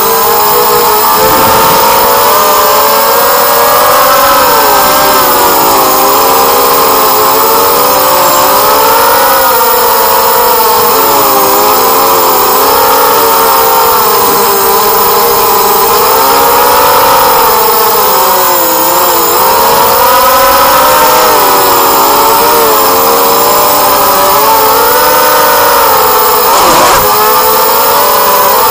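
Brushless motors (DYS BE1806 2300kv) spinning HQ4045 bullnose propellers on a 180-size FPV racing quadcopter, heard from its onboard camera: a loud whine of several close pitches that rise and fall together with the throttle.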